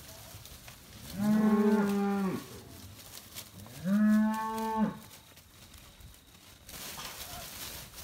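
Red beef cattle mooing twice, two long calls each about a second long that glide up into a held low pitch and then drop away.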